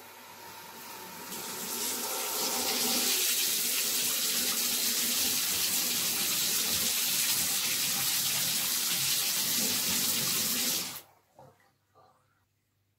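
Bathtub mixer tap running into the tub, building from a thin trickle to a full steady stream over the first couple of seconds, then shut off suddenly near the end, followed by a couple of faint drips. The tap is being run to bleed air out of the water lines after a new electric water heater was installed.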